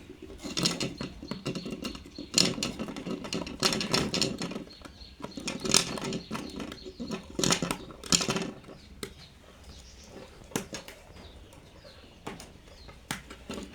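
Rustling and scraping bursts from handling wires and switch fittings, with scattered sharp clicks, mostly in the first two thirds.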